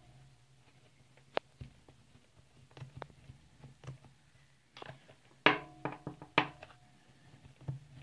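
Scattered sharp metal clicks and clinks of chainsaw bar nuts being done up by hand on their studs and small parts being handled, the loudest about halfway through with a brief metallic ring.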